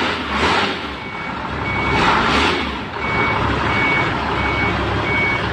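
Toyota 3.5-tonne forklift's reversing alarm beeping at one high pitch, about every 0.7 seconds, starting about a second in, over the steady sound of its running engine as it backs up.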